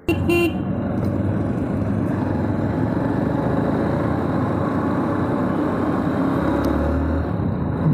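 Steady rush of wind and road noise from a moving motorbike ridden in traffic, with wind on the microphone and the bike's engine running underneath.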